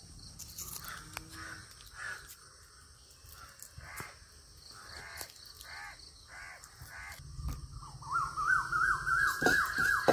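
Crows cawing again and again, over a steady high hiss. In the last two seconds a louder, rapid run of short rising chirps sets in.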